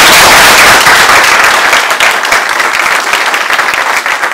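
Audience applauding: loud, dense clapping that eases off slightly toward the end.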